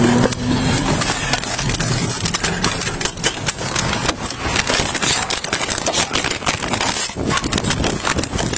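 Police body camera jostled as the officer runs: a steady rushing noise with many irregular knocks and rustles from footsteps and gear rubbing against the camera.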